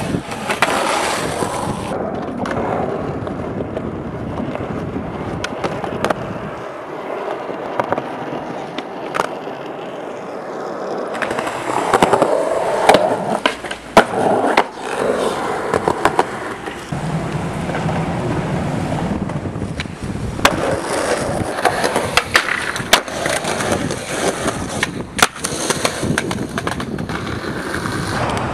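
Skateboard wheels rolling over concrete and asphalt, with repeated sharp clacks of the board popping and landing. There is scraping as a board slides along a concrete ledge.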